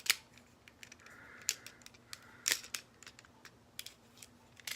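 Sharp plastic clicks and taps from the parts of a Transformers Titans Return Deluxe Brainstorm figure being moved and fitted during transformation. The loudest click comes right at the start, as a peg snaps into a slot, and a few more follow.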